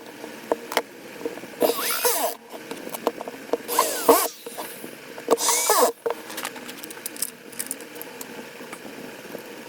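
Electric marble cutter's motor switched on in three short bursts about two seconds apart, each spinning up and falling away in pitch, as in a test run of the machine.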